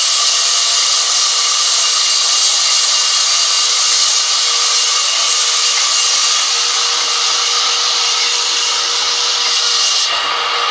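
Sawmill band saw blade ripping lengthwise through a large log as it is pushed through the cut: a loud, steady, high hiss with a thin steady whine from the running blade. The cutting noise drops off abruptly at the very end.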